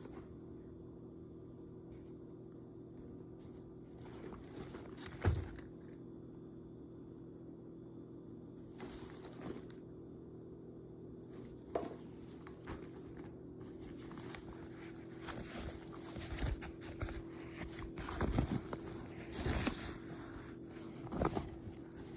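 Faint handling noise: scattered rustles and light knocks over a steady low hum, busier in the second half, with one sharper knock about five seconds in.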